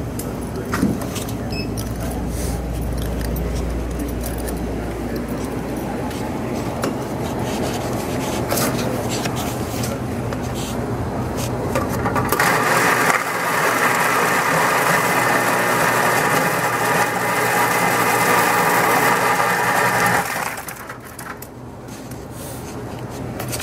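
Self-serve soda fountain dispensing into a foam cup: a steady rushing pour that starts about halfway through, runs for about eight seconds and cuts off. Before it, handling clicks and a low hum.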